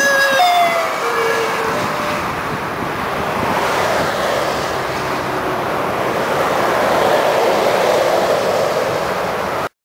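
Two-tone emergency siren of a passing ambulance-liveried medical team car, its alternating notes dropping in pitch and fading in the first couple of seconds. Steady motorway traffic noise of tyres and engines follows, swelling as vehicles pass, and cuts off suddenly near the end.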